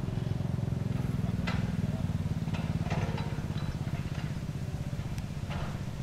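Komatsu PC200 hydraulic excavator's diesel engine running steadily as it works, with a few short knocks from the machine and bucket through the drone.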